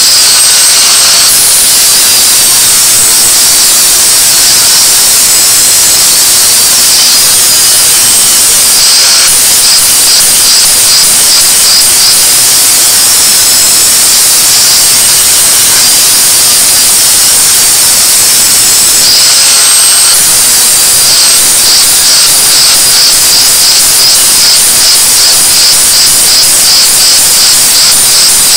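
INGCO angle grinder running continuously and grinding the surface of a hammer head smooth, a loud steady hiss of disc on metal. Twice the noise pulses rapidly as the disc bites and lifts.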